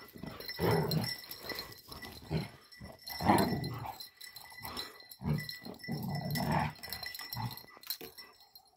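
Two dogs play-fighting, growling in about half a dozen short bursts.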